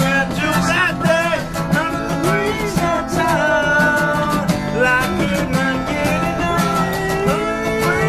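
Acoustic guitar being strummed steadily while men sing along to it.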